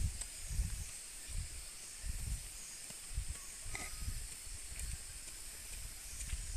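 Footsteps of a hiker walking a forest trail, low thuds about every three-quarters of a second, over a steady high-pitched hum of rainforest insects.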